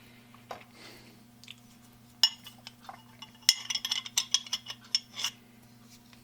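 Hard objects clinking and knocking as they are handled: one sharp clink about two seconds in, then a quick run of a dozen or so clinks over the next two seconds, over a steady low electrical hum.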